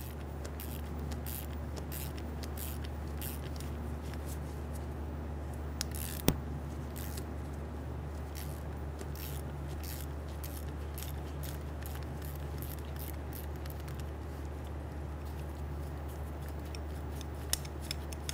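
Hand ratchet with an E10 Torx socket clicking in irregular runs as a stud is backed out of a held nut, with one sharper click about six seconds in. A steady low hum runs underneath.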